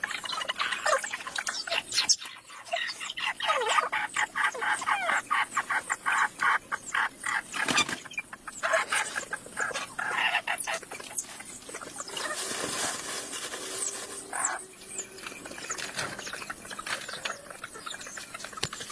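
Birds calling in a rapid, chattering series of short chirps and squeaks, heaviest in the first half.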